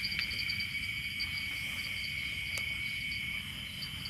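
Crickets and other night insects chirring steadily in several high pitches, one a fast pulsing trill; one of the lower-pitched choruses stops about three-quarters of the way through. A single sharp click sounds about two and a half seconds in.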